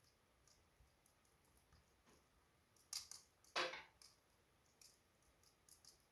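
Wood fire crackling in a fireplace: faint scattered ticks, with two louder pops about three seconds in, the second one longer.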